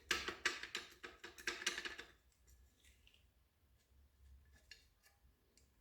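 A rapid series of rough scraping strokes on metal for about two seconds, then a few faint clicks.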